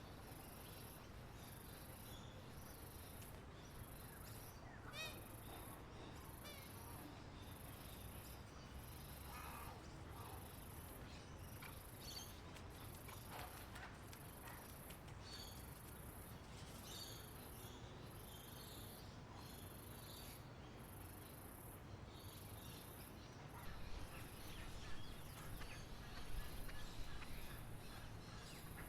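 Wild birds chirping in scattered short calls over an insect's high, evenly pulsing call that repeats a little more than once a second. There is a low steady background rumble, and the bird calls come thicker and louder near the end.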